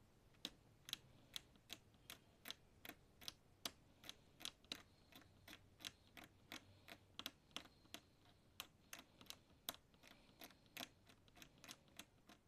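Small blade scraping the edge of an LED TV panel's source board in short, evenly paced strokes, about two to three a second, cleaning the line before it is cut.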